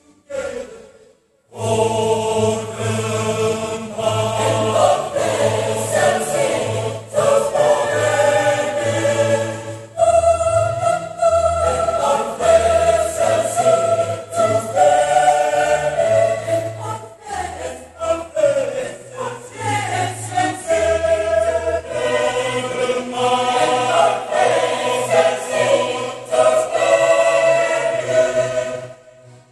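Mixed choir of women's and men's voices singing in parts, coming in together about a second and a half in and stopping just before the end.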